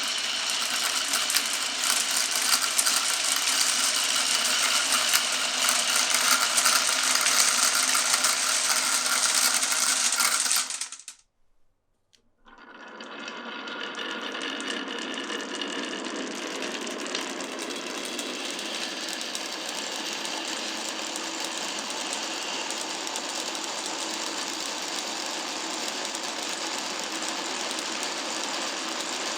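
Many marbles rolling and clattering along marble run tracks in a continuous dense rattle. It drops out suddenly about eleven seconds in, then resumes about a second later as a steadier, slightly quieter rolling.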